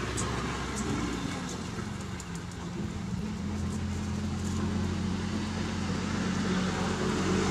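A motor engine running steadily with a low hum that rises slightly in pitch a few seconds in, then holds and grows louder toward the end. A few faint ticks sound in the first seconds.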